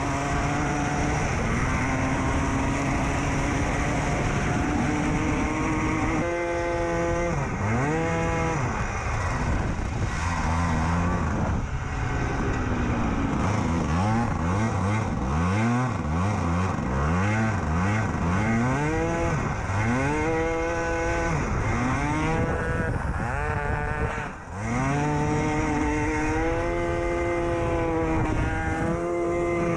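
Go-kart's small engine revving up and down over and over, its pitch rising and falling every second or two as the kart slides on ice. The engine note drops out briefly about 24 seconds in, then picks up again.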